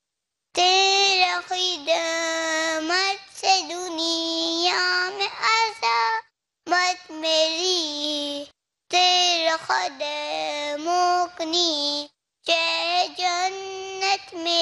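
A young boy singing solo into a microphone, unaccompanied, in long held phrases with brief silent breaths between them.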